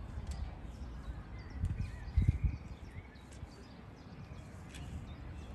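Outdoor ambience: low, irregular rumbling thumps, loudest about two seconds in, with faint bird chirps above them.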